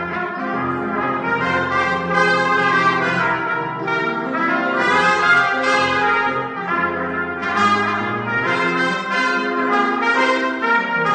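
Two trumpets playing a lively duet with piano accompaniment.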